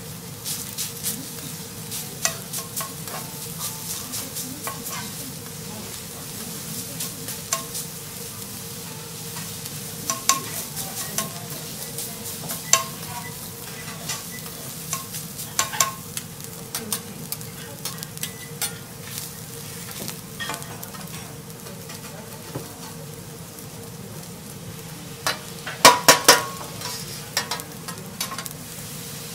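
Rice sizzling in butter on a hot teppanyaki griddle while steel spatulas scrape and clack against the plate, working the rice with many short sharp strikes. A quick flurry of loud clacks comes near the end.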